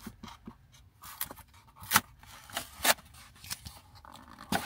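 Cookie packaging being handled: a handful of sharp clicks and crackles, spread irregularly about a second apart.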